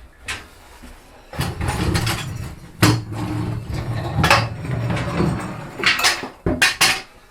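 Handling noise from a motorcycle and its stand: several sharp metal knocks and clanks over a low rumbling, with a quick run of three knocks near the end.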